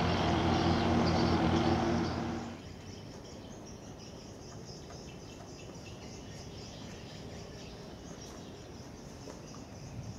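Steady low engine drone from a passing tanker, a hum with several pitches, stopping abruptly about two and a half seconds in. After it, quieter open-air background with faint chirping of insects and birds.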